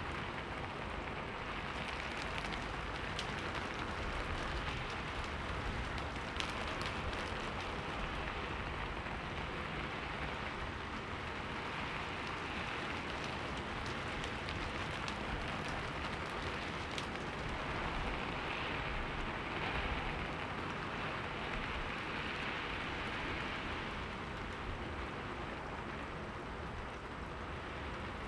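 Steady rain falling and pattering on a window pane, a continuous hiss with many fine drop ticks.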